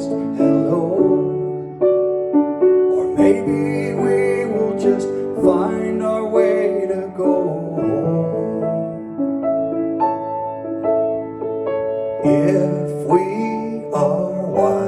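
Piano music: held chords under a melody, an instrumental passage of a song.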